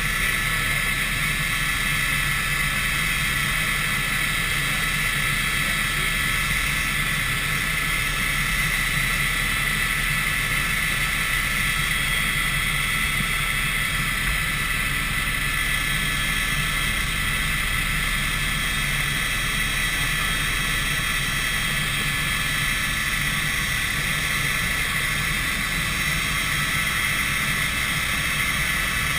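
Helicopter in flight heard from inside its cabin: a steady high whine over a constant low drone, unchanging throughout.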